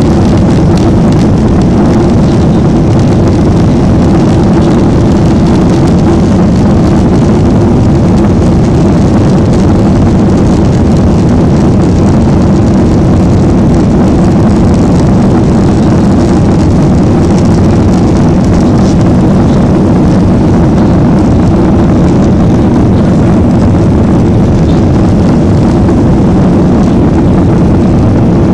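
Cabin noise of a Japan Airlines Boeing 737-800 climbing out just after takeoff: its CFM56 jet engines under climb power and the rush of air past the fuselage. The noise is loud and steady throughout and deepest in the low range.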